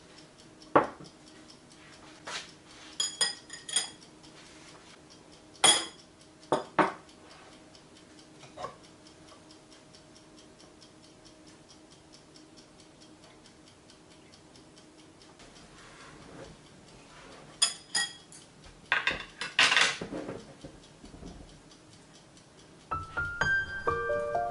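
Ceramic dishes and a spoon being handled on a table: a bowl set down with a few clinks and knocks, then the spoon clinking and scraping in the bowl as the bibimbap is mixed. Faint steady ticking runs underneath, and soft music begins near the end.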